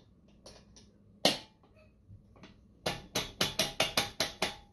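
Mercury outboard lower unit turned over by hand at the propeller while being checked in forward gear: one sharp metallic click, then a quick run of about nine clicks, some five a second.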